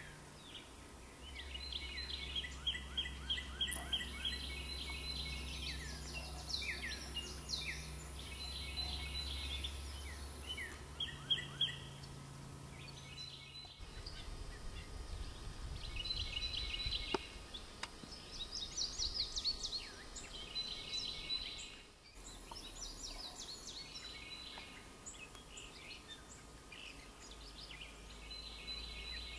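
Several songbirds sing and chirp, in quick repeated phrases, with short pauses between them. A low, steady rumble runs underneath for about the first ten seconds.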